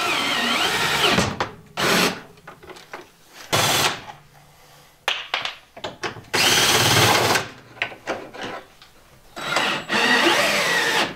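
Cordless drill-driver running hinge screws on the refrigerator's door hinges, in about five short runs, the longest a second or more near the start, the middle and the end.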